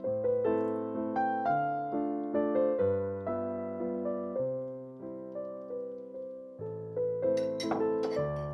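Background piano music: gentle notes struck one after another over sustained low notes.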